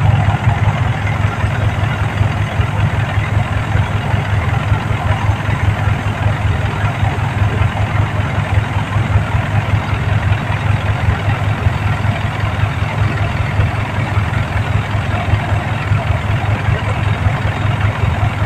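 Diesel engine of a New Holland rice harvesting machine running steadily at an even speed, with a deep, fast throb.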